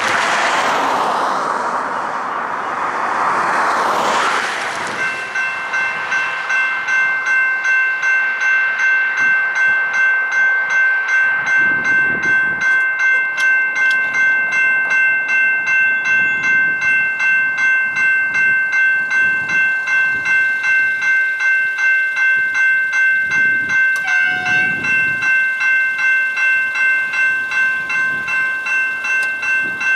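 A car passes over the crossing. About five seconds in, the level crossing's General Signals Type 2 electronic bells start ringing, an evenly repeated ding at about two strokes a second, as the crossing activates to warn of an approaching train.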